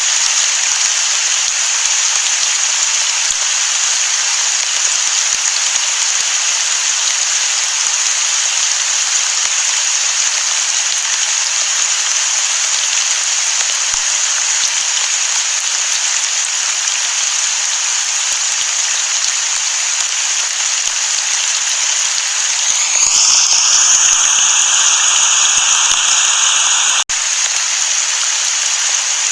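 Steady rain falling, an even hiss. About two-thirds of the way through it turns louder and brighter for a few seconds, then drops back suddenly.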